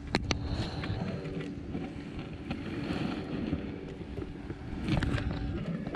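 Handling noise of a chest-mounted camera: fabric rubbing and scattered clicks and knocks as the wearer moves on a wooden plank platform, over a steady low hum.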